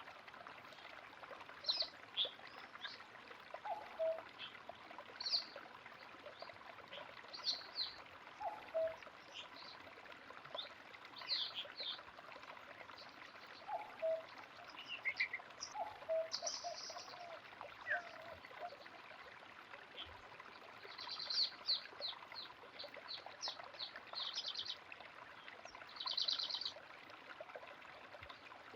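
Running water flowing steadily with songbirds calling over it. A low two-note whistle repeats several times in the first half, and fast chirping trills come in near the end.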